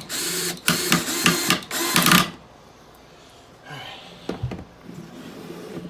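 Power drill running in several short spurts for about the first two seconds, drilling or driving a screw into a wooden board, then stopping. After that, quieter handling of the boards with a low knock near the middle.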